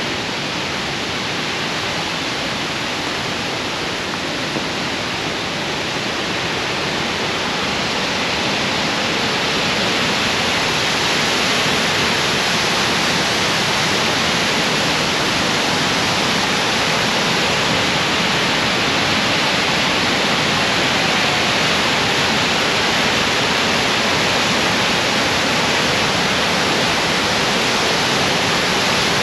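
Steady rushing of whitewater from river rapids and falls. It grows louder about ten seconds in, then holds.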